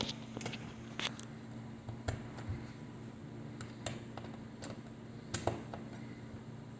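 Scattered light clicks and taps, spaced irregularly, as a screw is driven by hand with a Phillips screwdriver into a smoke detector's plastic mounting base, over a steady low hum.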